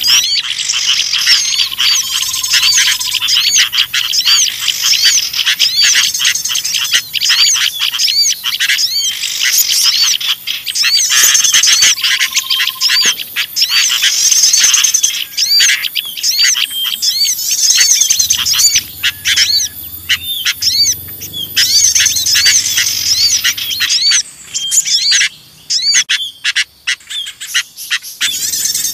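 Bird-trapping lure recording: a dense, agitated chorus of small songbirds chirping and twittering rapidly over one another, mixed with the noisy calls of sooty-headed bulbuls. The chatter thins out briefly about three quarters of the way through.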